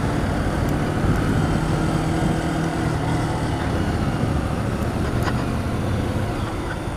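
Motorcycle engine running steadily on the move.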